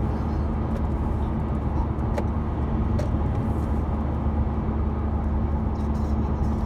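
Steady engine and road noise of a moving car heard from inside the cabin: a constant low rumble with a steady hum, broken only by a couple of faint ticks about two and three seconds in.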